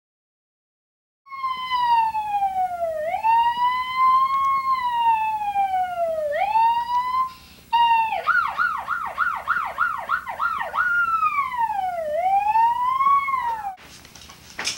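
A young boy imitating a police siren with his voice, after about a second of silence: slow rising and falling wails, then a quick warbling yelp for a few seconds, then slow wails again.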